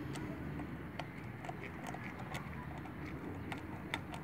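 Scattered light clicks and taps, irregular, about once a second, from small metal parts being handled as the locking hub's retaining nuts are fitted, over a steady low hum.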